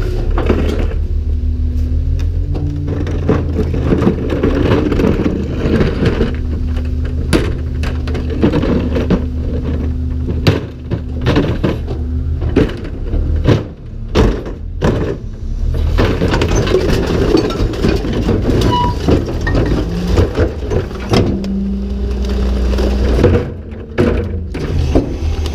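Garbage truck engine running with a steady hydraulic whine as the cart tipper lifts a full recycling cart; about halfway through, the cart bangs over and bottles and containers clatter into the hopper, then the whine returns as the empty cart is lowered.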